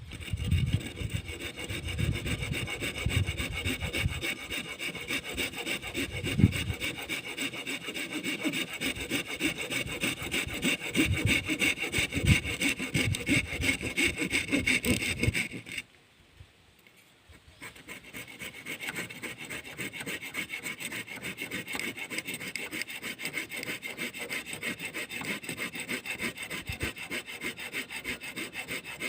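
Small saw cutting with fast, even strokes. It stops a little past halfway for about two seconds, then starts again slightly quieter.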